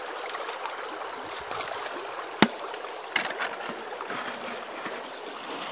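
Creek water rushing steadily through a sluice box and over its riffles. A sharp click about halfway through, and a smaller one just after.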